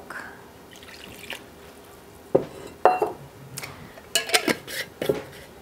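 Kitchenware clinking as batter ingredients are measured into a stainless steel mixing bowl: two separate sharp clinks, the second with a short ring, followed near the end by a quick cluster of clicks and knocks.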